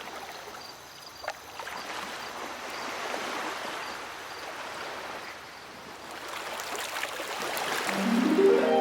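Cartoon sea sound effect: water washing, swelling and ebbing like waves. Near the end a rising run of chime-like music notes begins.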